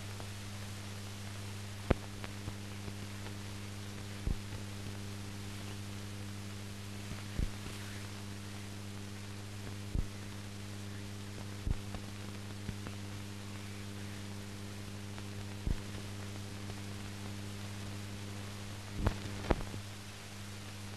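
Steady electrical hum with a constant hiss and a few sharp clicks and pops at irregular intervals. This is the background noise of a silent newsreel's transfer; nothing from the filmed scene is heard.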